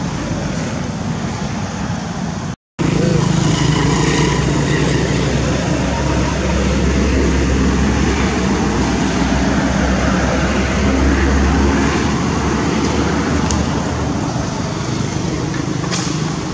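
A motor vehicle engine running, a low rumble that strengthens a few seconds in and fades near the end, over a steady outdoor hiss. The sound cuts out briefly about two and a half seconds in.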